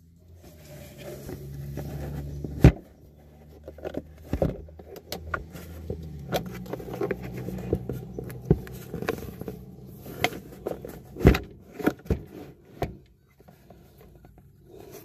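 A small sealed motorcycle battery being pushed and slid into a plastic scooter battery compartment: rubbing and scraping with a string of sharp knocks and clicks, the loudest about two and a half seconds in and again near eleven seconds.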